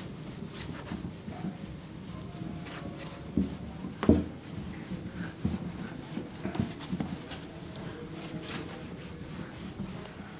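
A whiteboard being wiped clean by hand, with repeated rubbing strokes across the board's surface. Two knocks against the board come about three and four seconds in, the second the loudest sound of all.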